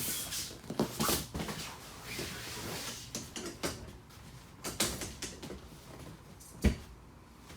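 Scattered knocks and rustling of someone moving about and handling things in a small RV room, with one sharp thump near the end.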